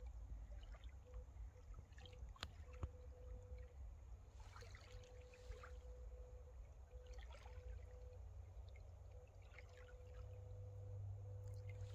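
Faint lapping of small waves at the lake's edge, a few soft splashes spread out over a low rumble.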